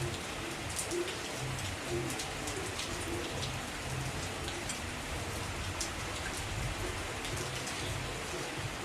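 Heavy rain falling steadily, with many sharp individual drop strikes standing out from the even hiss.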